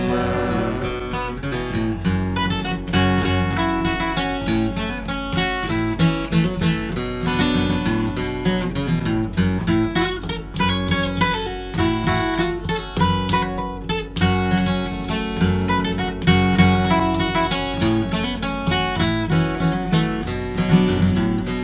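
Solo steel-string acoustic guitar playing an instrumental break: a melody of picked notes over strummed chords, at a steady rhythm.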